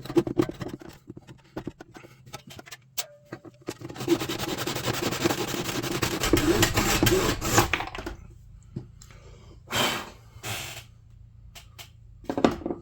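Deer antler being sawn by hand: a few knocks from handling, then about four seconds of fast, rasping saw strokes through the antler, followed by a few short scrapes.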